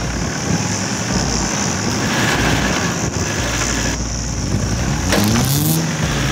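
Four-wheel-drive engines running under load as a Suzuki Jimny tows a stuck Toyota Prado up a soft sand track on a snatch strap, with an engine revving up, its pitch rising, about five seconds in.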